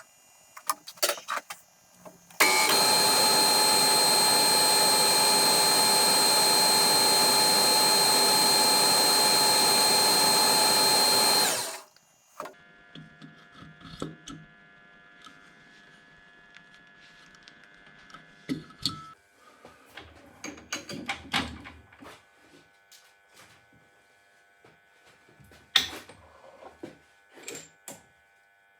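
A power tool runs steadily and loudly for about nine seconds, starting and stopping abruptly. Afterwards there is a faint steady hum with scattered light clicks and knocks.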